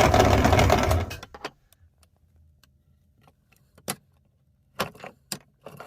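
Meat grinder running as it grinds crunchy candy, then cutting off about a second in. After it stops there are a few scattered sharp clicks and taps.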